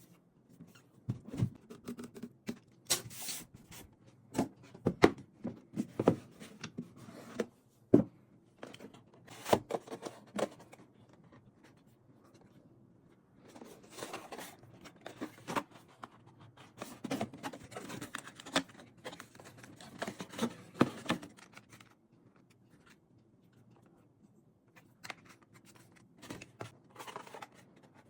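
Handling noises: irregular clicks, taps and short rustling scrapes of objects being picked up and moved, in quieter bursts with pauses between. No steady hair-dryer airflow is heard.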